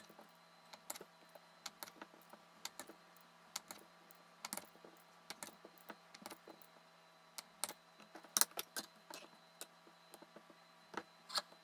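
Knife slicing through a block of Swiss cheese, the blade tapping the cutting board in quiet, irregular clicks, a few louder near the end.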